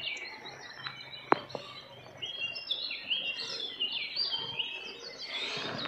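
Small birds chirping, many short overlapping calls, with one sharp click a little over a second in.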